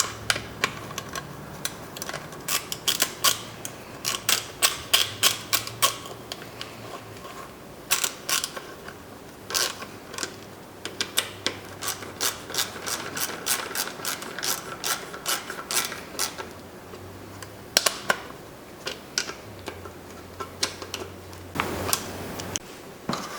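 Hand ratchet with a 10mm socket clicking in quick runs with short pauses between, as bolts are run in.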